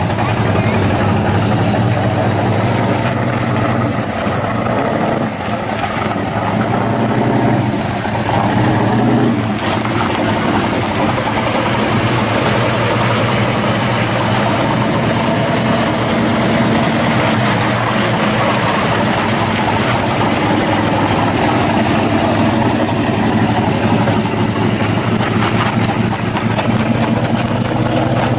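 Pro street Chevy Vega's engine idling, loud and steady.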